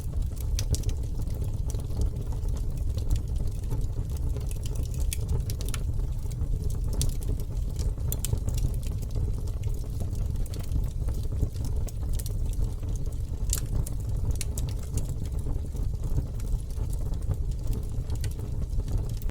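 Wood campfire burning: a steady low rumble of flames with scattered crackles and pops of burning wood.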